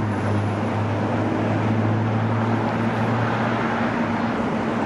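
A vehicle engine running with a steady low hum, over an even rush of road noise.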